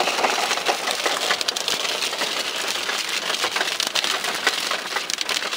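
Hail pelting the car's roof and windshield, heard from inside the cabin: a dense, steady clatter of countless small ice strikes over a hiss.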